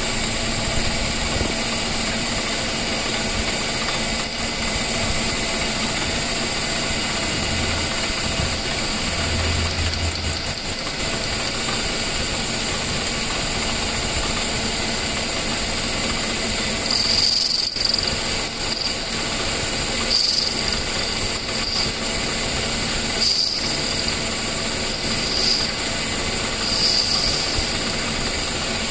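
Metal lathe running steadily, spinning a pool cue shaft in its chuck, with scattered clicks throughout. In the second half it is joined by a few short, high-pitched squeaks.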